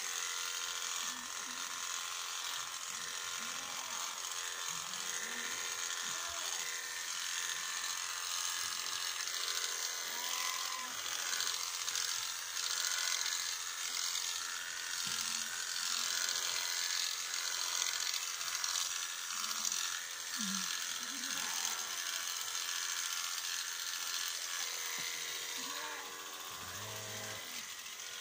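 Electric sheep-shearing clippers running steadily as they cut through a sheep's fleece, with a constant buzzing hum that swells and dips slightly as the strokes go.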